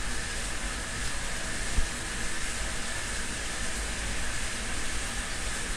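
Steady rushing noise with a low rumble underneath, and a single sharp click about two seconds in.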